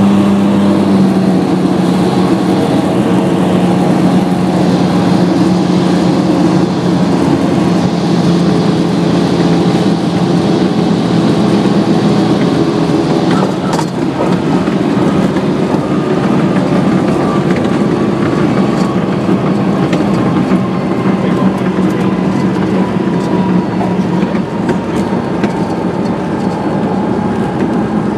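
Cabin noise of a Velocity canard pusher aircraft landing: a loud, steady engine and propeller drone on final approach. About fourteen seconds in, a sharp knock marks the touchdown, followed by rattling during the runway rollout and a whine that slowly falls in pitch.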